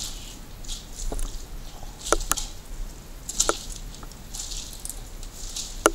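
Footsteps scuffing and crunching on a gritty, debris-strewn floor, a step every second or less, with a few sharp snaps of debris underfoot, the loudest near the end.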